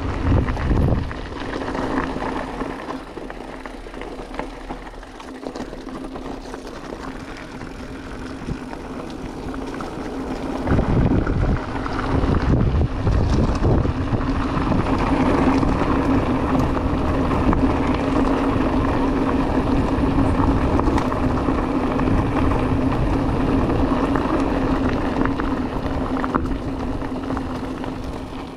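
Riding an e-mountain bike on Wolfpack Enduro tyres: a steady hum from the bike under way, with wind buffeting the microphone and low rumble. The sound gets louder about ten seconds in and stays there.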